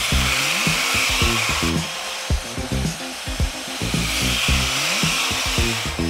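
Bauer portable band saw cutting thin brass sheet, a hissing cutting noise that swells twice, over background music with a steady beat.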